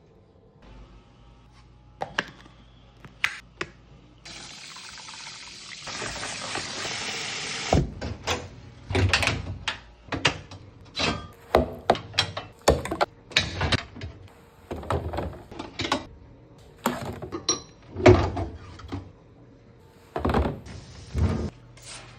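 A tap runs into a sink for about three seconds and cuts off, then comes a long run of irregular knocks, clunks and splashing as range hood parts are handled in the soaking water.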